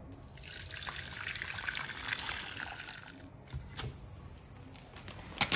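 Water poured from a kettle into a nonstick saucepan: a steady trickle for about three seconds that then stops, followed by a couple of light knocks.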